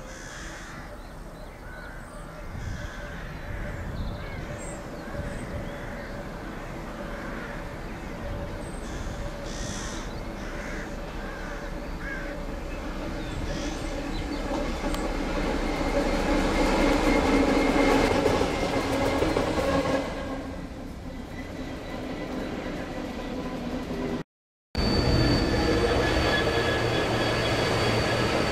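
Class 59 diesel-electric locomotive running light, its EMD two-stroke V16 engine growing louder as it approaches, loudest about two-thirds through, then dropping away quickly as it passes; birds call in the first half. After a sudden cut, a Class 66 freight locomotive hauling wagons passes with a steady high wheel squeal.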